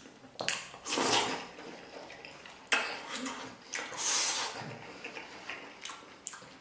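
Eating at the table: tableware clinking and scraping, in a handful of short, separate bursts of noise.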